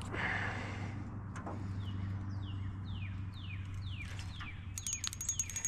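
Steady low hum of a small electric motor, most likely the boat's trolling motor. Over it a bird calls a run of short falling whistles, about two a second. Near the end there is quick mechanical clicking, like a fishing reel being cranked.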